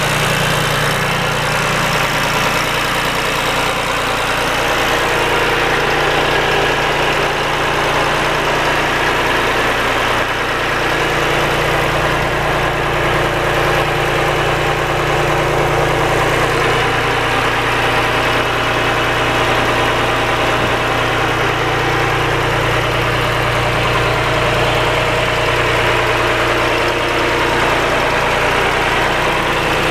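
John Deere farm tractor engine idling steadily.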